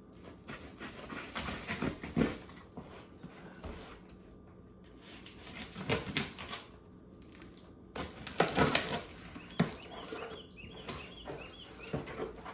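Cardboard box and packing being opened and handled: rustling and scraping in uneven bursts, loudest about two, six and eight to nine seconds in.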